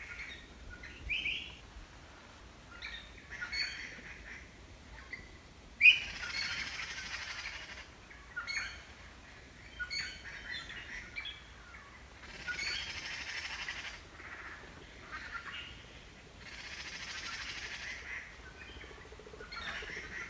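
Giant panda biting and crunching a bamboo shoot, with a sharp snap about six seconds in and spells of crackly chewing. Small birds chirp in short bursts throughout.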